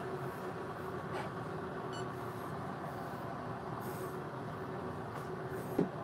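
Steady low background hum with a faint steady tone through it, and a faint knock near the end.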